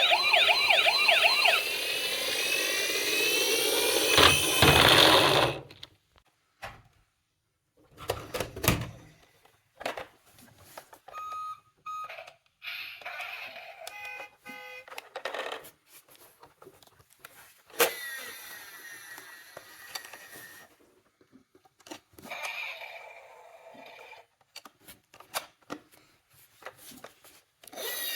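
Electronic toy sirens of small emergency-vehicle toy cars wailing, several overlapping, then cutting off about five and a half seconds in. After that come scattered clicks and knocks of the toy cars, with short snatches of siren tones.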